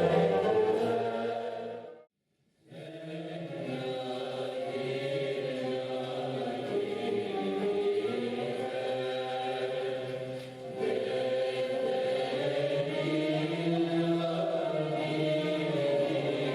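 Recorded classical Turkish music sung by a chorus with instruments. One piece fades out about two seconds in, and after a brief silence another begins.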